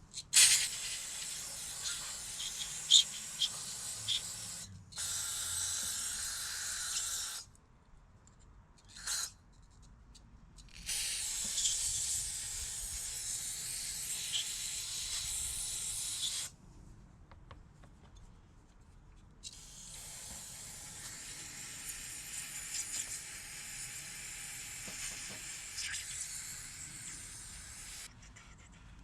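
Aerosol can of carburetor cleaner spraying into a dirty throttle body, cleaning out built-up dirt and debris, in five spells with short pauses between. One spell about nine seconds in is brief, and the last one is the longest.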